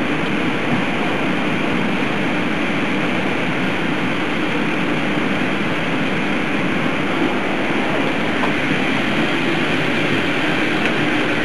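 Steady, loud mechanical noise with a low hum, unbroken throughout.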